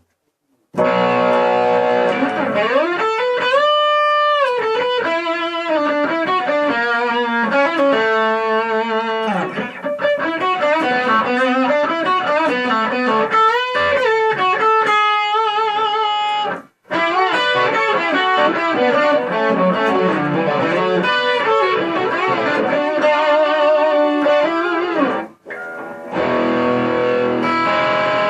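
Greco electric guitar being played through effects: a melodic lead of single notes with string bends and vibrato, stopping for a moment twice.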